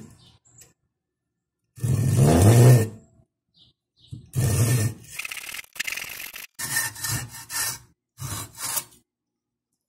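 Hand saw cutting through a wooden broomstick in several bursts of back-and-forth strokes, the longest and loudest about two seconds in, then quicker short strokes that stop about a second before the end as the cut goes through.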